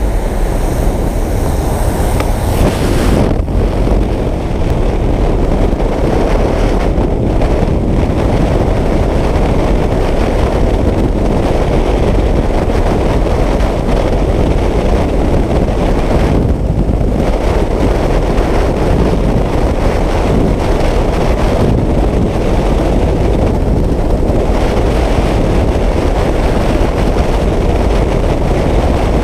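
Freefall wind rushing over a helmet camera's microphone, loud and steady. For about the first three seconds, before the exit, the jump plane's engine and slipstream at the open door, which cut off suddenly as the skydivers leave the aircraft.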